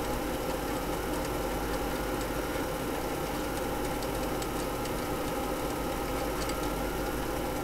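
Commodore 1541 5.25-inch floppy disk drive running steadily as it reads a file off the disk, with faint ticks now and then.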